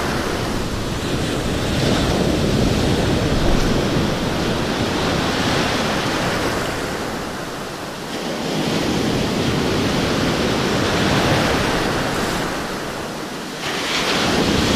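Close-up surf: waves breaking and whitewater rushing through shallow water, in surges that swell and ease off, with a loud surge near the end. Wind buffets the microphone.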